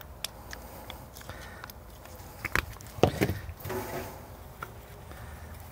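Sour cream squirted from a plastic squeeze pouch onto burrito fillings: two short sputtering squirts about two and a half and three seconds in, with light handling clicks and rustles, over a low steady rumble.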